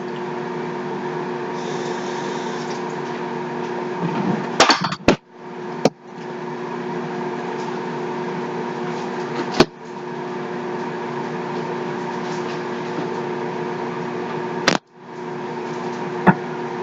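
Microwave oven running with a steady hum, heating a mug cake. A few sharp clicks of a spoon against a dish sound over it, and the hum drops out briefly twice.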